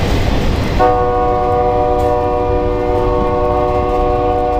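Freight cars rumbling past on the rails, and a little under a second in a train's air horn starts, holding a steady chord of several notes.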